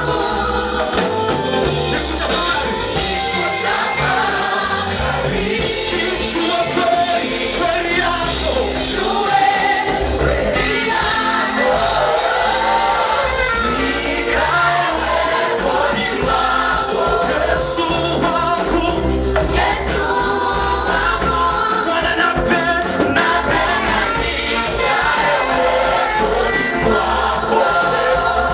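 Gospel choir singing a praise song in harmony, with instrumental accompaniment and a steady low bass beat.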